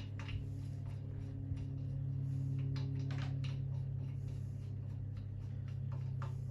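Light, scattered clicks and taps of metal tools and engine parts being handled, over a steady low hum.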